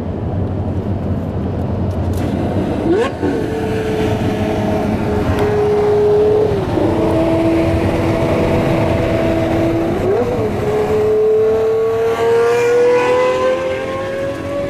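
Lamborghini Murciélago LP640's V12 engine under way at speed, heard over road and wind noise from a following car: the revs climb about three seconds in and hold steady, drop to a lower pitch for a few seconds, jump back up, then rise slowly as it accelerates.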